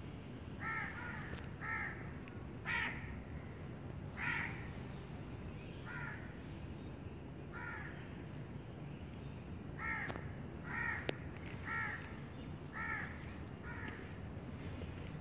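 Crows cawing: about eleven short calls spaced one to two seconds apart, over a steady low background rumble.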